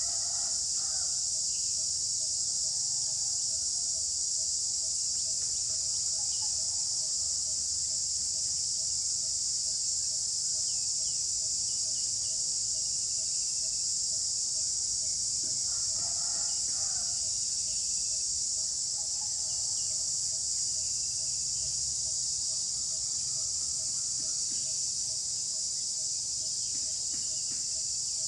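A dense, steady chorus of insects making a continuous high shrill. Lower down, a quieter note pulses at an even rate throughout, and faint bird calls come through about a second in and again around the middle.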